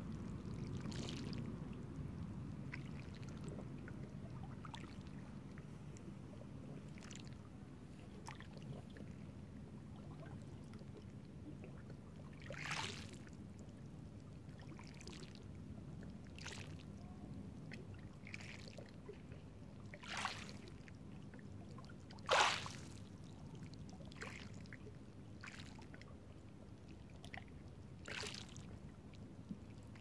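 Small waves washing in over rocks and pebbles at a shoreline: a low, steady wash broken by several short, sharp splashes, the loudest about three-quarters of the way through.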